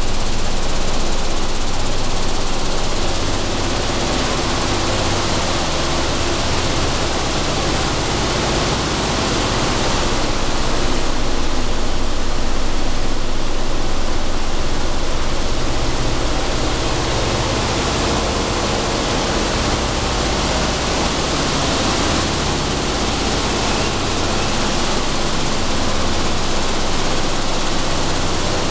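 Sunflower seed dehulling and cleaning machinery running, with seed moving through it: a loud, steady, even noise with small shifts in level and no breaks.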